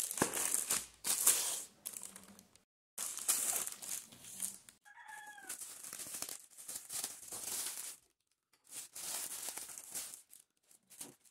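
Plastic poly mailer bag crinkling and rustling in irregular bursts as it is handled, torn open and a cardboard box pulled out of it. A short pitched call sounds once, about five seconds in.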